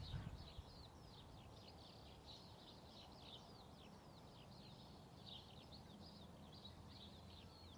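Faint birdsong: a steady run of short, quick chirps from small birds, over a low steady background rumble.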